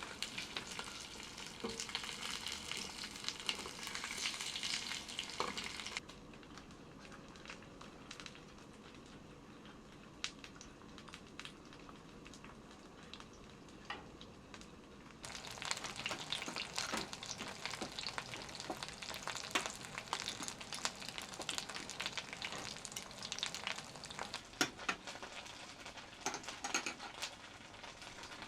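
Food sizzling and crackling in a hot pan while being stirred, with scattered sharp clicks. The sizzle drops to a quieter hiss about six seconds in and comes back loud about halfway through.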